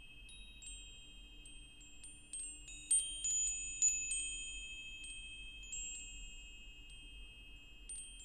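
Wind chimes ringing: irregular high, clear strikes that ring on and overlap, the loudest about three and four seconds in.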